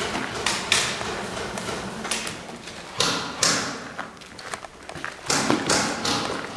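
Irregular thuds with rustling noise, a few each second, some louder than others.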